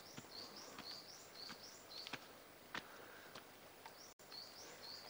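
A small songbird repeating a short rising-and-falling phrase about twice a second, with soft footsteps on a dirt forest trail. The sound drops out for an instant about four seconds in.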